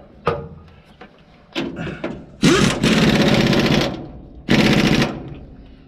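Impact wrench hammering in two bursts, a long one of about a second and a half and a short one about a second later, with a few metal knocks before them, as the bolts of a combine's grain concave are run in.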